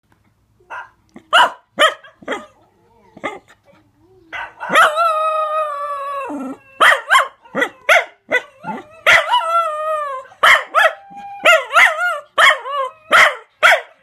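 Chocolate roan cocker spaniel woo-wooing: a quick run of short, bending woo calls, with one long howl of about two seconds just after four seconds in that slides down at its end.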